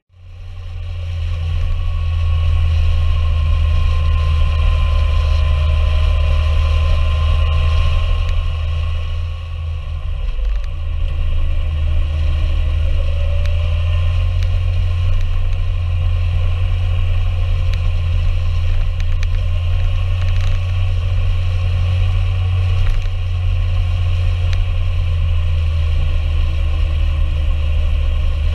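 Motorcycle engine and wind noise picked up by a camera on the moving bike: a steady heavy low rumble with the engine note slowly rising and falling as the bike runs through the bends. There is a short drop in level about ten seconds in.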